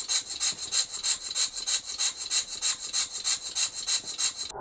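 Small single-cylinder model slide-valve engine running on compressed air: an even, hissing exhaust chuff about three times a second. It cuts off abruptly near the end.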